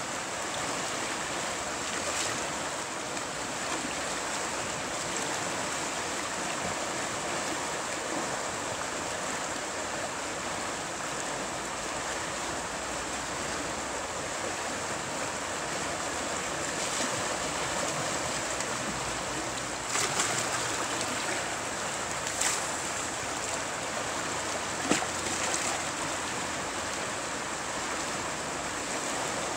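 Rushing water of a small river rapid, a steady whitewater rush, with a few brief louder sounds between about two-thirds and five-sixths of the way through.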